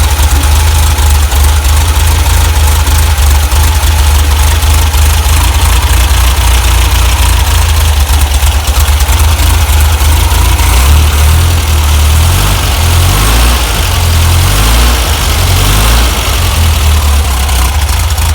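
Air-cooled VW flat-four engine idling, freshly restarted after a distributor O-ring replacement meant to cure an oil leak. It runs steadily and loudly, and its low note wavers a little in the second half.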